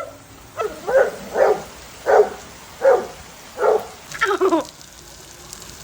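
A dog barking, about six short barks in a row over four seconds; the last one is drawn out and falls in pitch.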